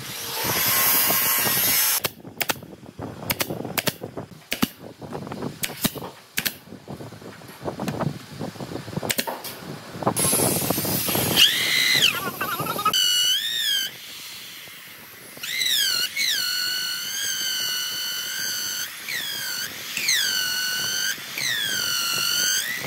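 Workshop tool sounds: first a short hissing, then a run of sharp knocks and taps, then a small power tool's high whine that dips and rises in pitch several times, as it does when a drill or rotary tool is loaded and released.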